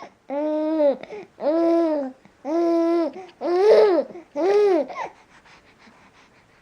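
Two-month-old baby cooing: five drawn-out vowel sounds in a row, each about half a second long and arching up then down in pitch.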